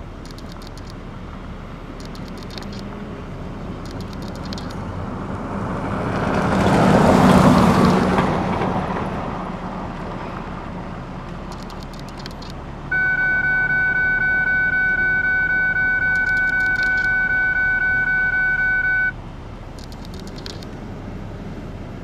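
A vehicle passes by, swelling and fading with its loudest point about seven seconds in. Later a loud steady single-pitched tone sounds for about six seconds, starting and stopping abruptly.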